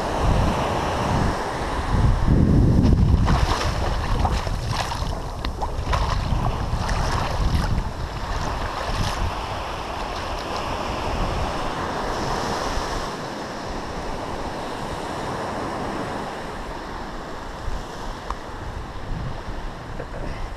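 Surf washing onto a sandy beach with wind buffeting the microphone, the wind rumble heaviest in the first few seconds. Between about three and nine seconds in there is splashing in the shallows as a small shark is rinsed in the wash, and the sound grows gradually quieter near the end.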